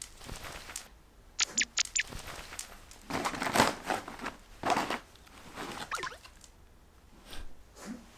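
Border collies nosing and rummaging in a canvas tote bag: rustling and crinkling of the bag and what is inside it, with a quick run of four sharp clicks about a second and a half in.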